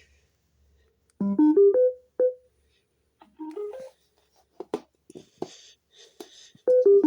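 Be Wave mini Bluetooth speaker playing its electronic prompt chimes: a quick rising run of piano-like notes about a second in, a shorter rising run midway, and a falling run near the end, with a few sharp clicks in between.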